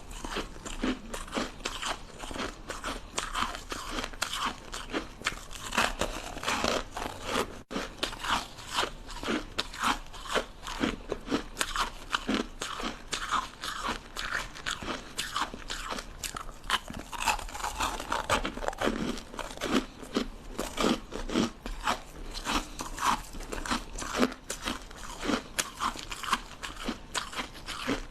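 Ice sticks being bitten and chewed: a continuous run of sharp, irregular crunches and crackles, with a momentary break a little over a quarter of the way through.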